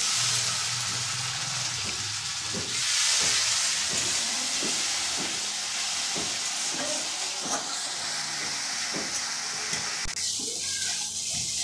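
Spice paste sizzling and hissing in hot oil in a steel kadai just after a splash of water has gone in, the masala being cooked down. A steel spatula stirs and scrapes it in repeated strokes.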